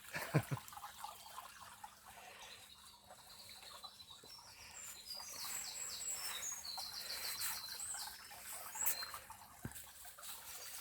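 Small woodland brook babbling and trickling, with a songbird singing a quick run of high, repeated chirps in the middle.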